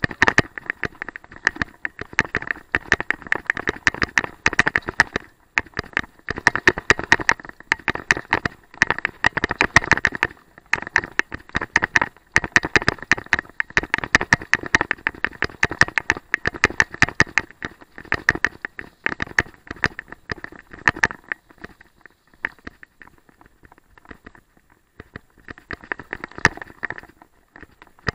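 Mountain bike rattling and clattering over a rough dirt trail, a dense run of irregular clicks and knocks picked up through the handlebar-mounted camera, thinning out for a few seconds near the end.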